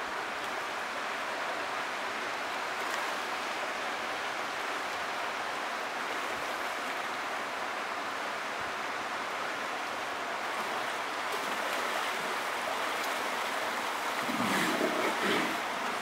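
Steady rush of creek water, with a burst of louder splashing about a second and a half before the end as grizzly bears surface and thrash in the water.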